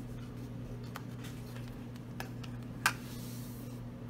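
A few light plastic clicks and taps as the lid of a plastic deli cup is pried off and set down, the sharpest about three seconds in, over a steady low hum.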